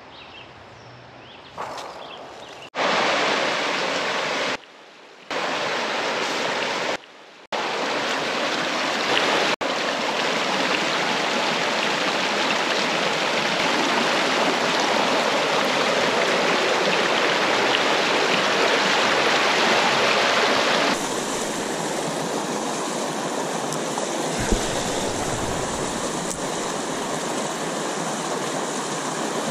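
Rushing river water pouring over rocky shoals and rapids. It comes in loud and steady about three seconds in and cuts out briefly twice soon after.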